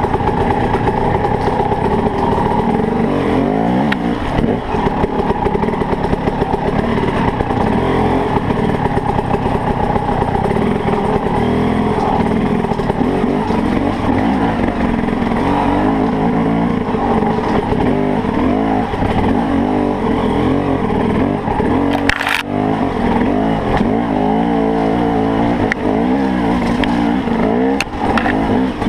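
KTM dirt bike engine running on the throttle over a rough trail, its pitch rising and falling as the rider opens and closes the throttle. A single sharp knock about three quarters of the way through.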